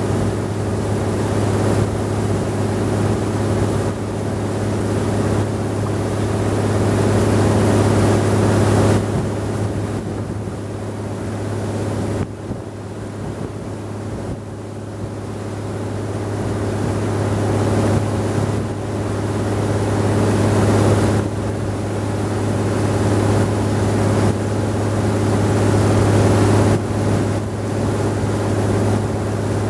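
Wooden river boat's engine running steadily under way, a loud, even drone, with wind and rushing water noise over it. It eases a little in loudness for a few seconds around the middle.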